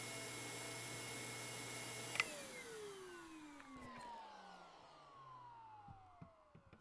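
Shark vacuum cleaner motor running steadily, then switched off with a click about two seconds in, its whine falling in pitch as the motor winds down.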